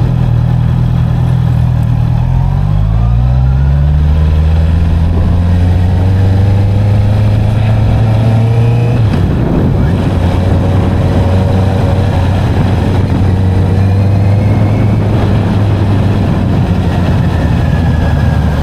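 Honda CB650R's inline-four engine running while under way. Its pitch rises a few seconds in as it accelerates, holds steady, then drops to a lower steady note about halfway through.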